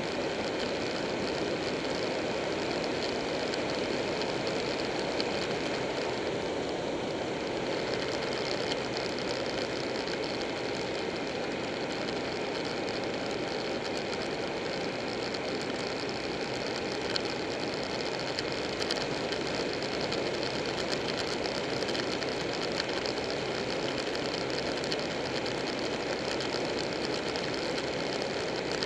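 Buell 1125R motorcycle's liquid-cooled V-twin engine running at a steady cruising speed, mixed with steady wind and road noise from riding.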